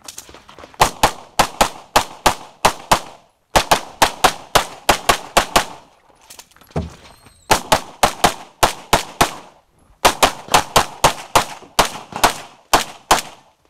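9mm major Open-division race pistol firing fast strings of shots in quick succession, four bursts of rapid fire separated by gaps of about a second or two.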